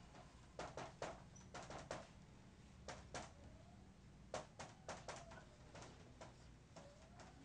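Dry-erase marker writing on a whiteboard: faint scratchy strokes in several short clusters, with a few brief squeaks of the marker tip.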